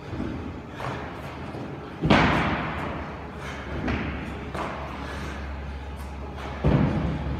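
Heavy thuds of a man landing during burpee box jump-overs, on a wooden plyo box and on the rubber gym floor. Two loud thuds, about two seconds in and again near the end, with lighter knocks between them, over quiet background music.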